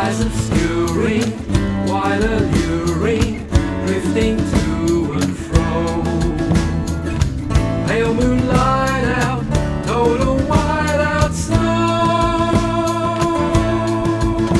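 A pop song: a gliding melodic line over guitar and a regular beat, giving way about eleven seconds in to long held chords.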